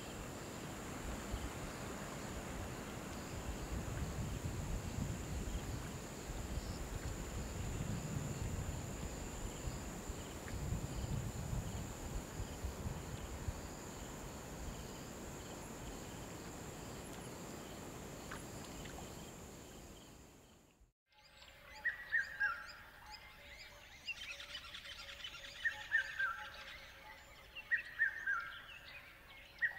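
Steady hiss with low rumbling and a faint high whine, the running sound of the aquarium's filter and bubbling air stone. About two-thirds of the way in it cuts off suddenly and a soundtrack of repeated falling bird-like chirps over held tones takes over.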